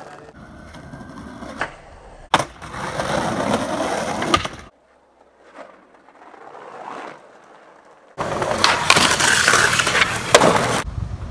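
Skateboard wheels rolling on pavement and brick, with the board scraping along a ledge and sharp clacks of the tail popping and the board landing. The sound cuts abruptly from one take to the next several times, and the loudest stretch is near the end.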